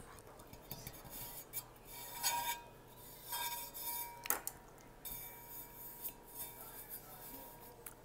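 Fingernails tapping and rubbing on a stainless-steel insulated water bottle. There are scattered light clicks and a few sharper taps, and the metal rings faintly after them.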